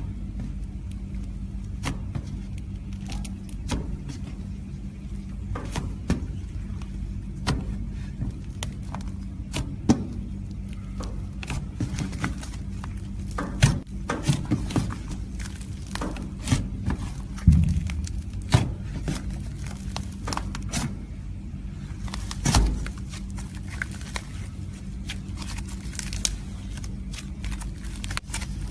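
Slime being handled, poked and squeezed: irregular sticky clicks and small pops, a few sharper ones, over a steady low hum.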